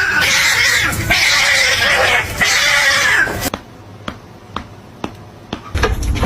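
Cats fighting: three long, harsh cries in quick succession that cut off suddenly about three and a half seconds in, followed by faint scattered clicks.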